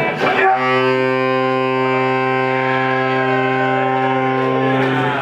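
A live band opens a ska song with one long, steady low note, held for about four and a half seconds and cut off sharply at the end.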